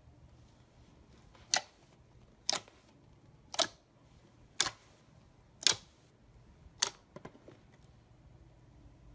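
Thick white slime popping as a finger pokes into it again and again: six sharp pops about a second apart, then a few fainter clicks.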